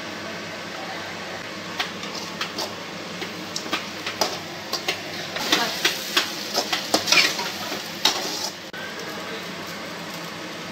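Perforated steel skimmer ladle scraping and clinking against the side of an aluminium pot while stirring vegetables frying in oil. The scrapes start about two seconds in, come thickest for a few seconds after the middle, and stop a couple of seconds before the end.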